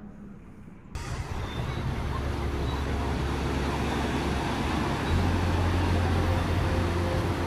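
Steady road and traffic noise of a car being driven, with a strong low hum underneath; it cuts in abruptly about a second in, after a quieter first second.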